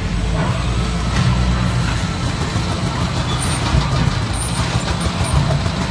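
Bagging-line machinery running steadily: belt conveyors carrying filled bags toward the palletizing robot, a continuous low drone with faint clicks and clatter over it.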